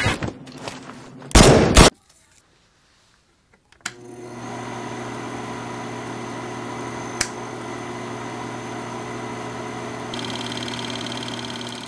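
A short, loud burst of gunfire a little over a second in, then silence for about two seconds, then a steady drone of held tones with a single sharp click partway through.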